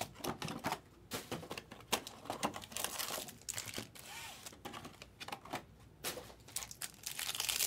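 Cardboard trading-card hobby box being opened and its foil-wrapped packs handled: irregular light taps and clicks with some crinkling.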